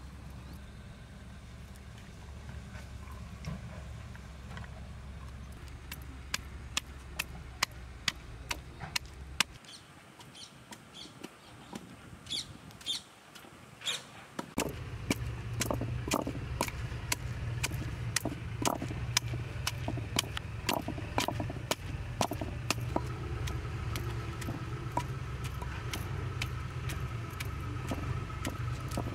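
Wooden pestle pounding ginger and garlic in a stone mortar: sharp, regular knocks about one to two a second, over a steady low hum that drops out for a few seconds near the middle.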